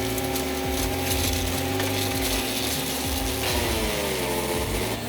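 Wood chipper's engine running at a steady pitch. About three and a half seconds in, the engine note sags and then climbs back near the end, as when the machine takes load from wood being fed in.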